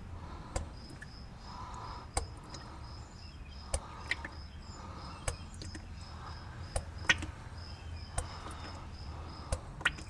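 A cricket chirping steadily in quick, evenly spaced pulses, with scattered sharp ticks and clicks at irregular intervals.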